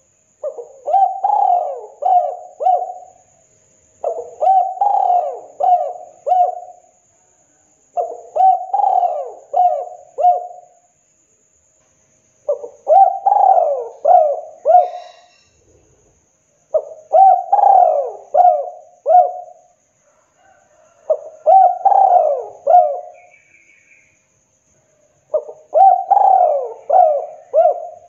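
Spotted dove cooing: seven phrases about four seconds apart, each a quick run of four or five coos.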